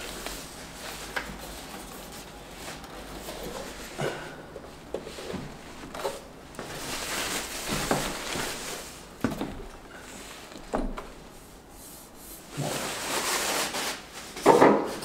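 Plastic wrapping rustling and crinkling as it is pulled off a turntable, with a few light knocks from handling, in uneven spells; the loudest burst comes near the end.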